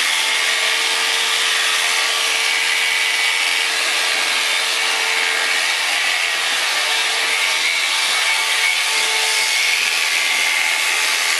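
Electric shearing handpiece running steadily as it cuts through alpaca fleece: a constant whirring buzz with a faint steady tone.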